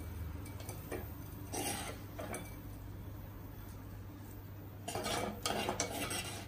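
A spatula scraping cooked yardlong beans out of an earthenware clay pot and knocking against a glass bowl, in short bursts about a second and a half in and again around five seconds in, with light clinks between.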